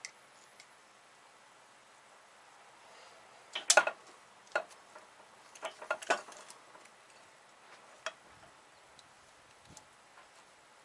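Steel hand tools clinking and scraping against a wheel bearing's retaining circlip in a spindle as the clip is pried and gripped out. The loudest is a quick cluster of sharp metallic clicks about four seconds in, with scattered single clicks after.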